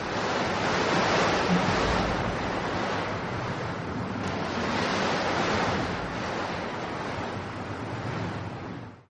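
Storm sound effect: a steady rushing noise that swells and eases slowly, cutting off suddenly at the very end.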